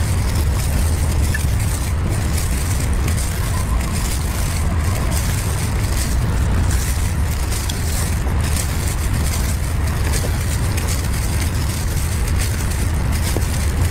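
Steady low rumble with an even hiss over it, unbroken and unchanging throughout: constant background noise.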